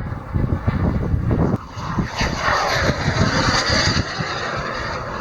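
Turbine engine of a large diesel-fuelled RC sport jet making a fast pass, its rushing jet noise swelling about two seconds in and easing off after about four seconds, with wind buffeting the microphone.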